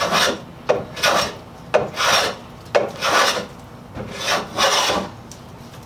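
Steel draw knife shaving a wooden board, with about six strokes roughly a second apart, each starting with a sharp catch and followed by a short scraping hiss. The blade is now cutting with the grain, after earlier tearing against it.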